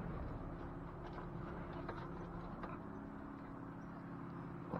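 Boat motor running steadily in reverse with a low, even hum, backing the boat. A few faint knocks sound over it.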